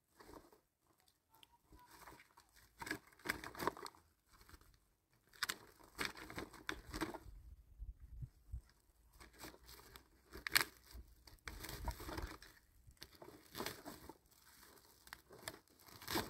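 Rustling and crinkling of a white woven plastic sack being handled, in irregular bursts with a few sharper clicks.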